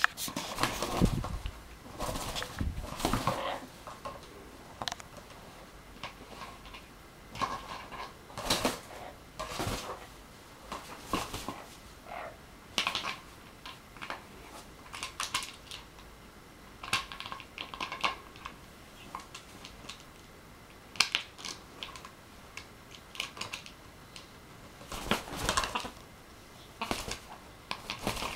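An Amazon parrot biting, shoving and wrestling an empty plastic bottle on a duvet: irregular crackles, taps and knocks of thin plastic, coming in clusters with short pauses between.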